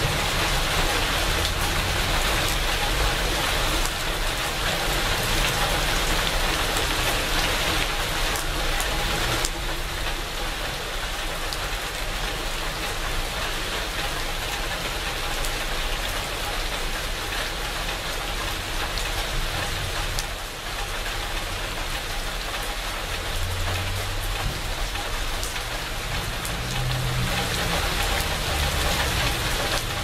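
Steady rain falling on leafy shrubs and the ground, with many separate drops hitting close by.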